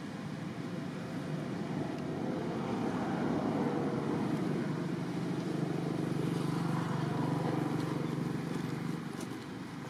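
A passing motor vehicle's engine: a low, steady hum that builds over several seconds and drops back about a second before the end. A few light clicks come near the end.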